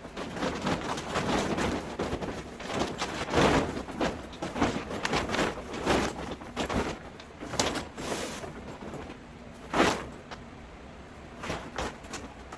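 Rustling and scraping as a fabric grow tent cover is worked over its metal frame, with several sharp knocks in the second half.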